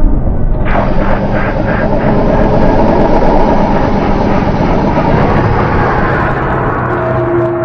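Designed monster sound effect: a loud, harsh, rumbling rush of noise that starts under a second in, pulses a few times, then holds steady. It gives way to a lower, steadier tone near the end.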